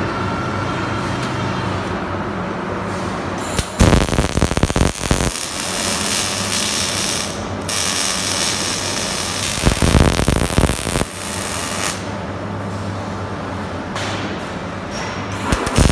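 Automatic angle-bar welding machine running with a steady hum, broken by stretches of loud crackling hiss from the welding arc: about four seconds in, from about eight to twelve seconds, and again near the end.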